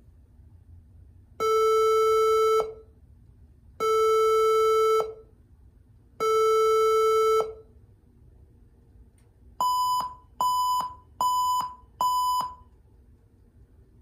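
HP All-in-One computer sounding its power-on error beep code: three long, low beeps, then four short, higher beeps, with a blank screen. Here the fault was cured by fitting a new power adapter.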